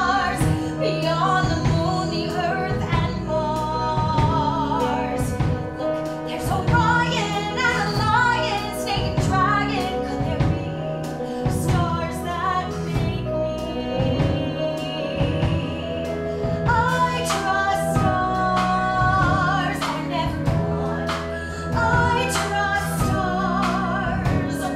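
A woman singing a musical-theatre song with vibrato over a steady instrumental accompaniment.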